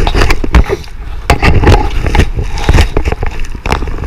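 Wind buffeting the microphone in a heavy rumble, with a run of irregular knocks and scrapes from handling on the boat.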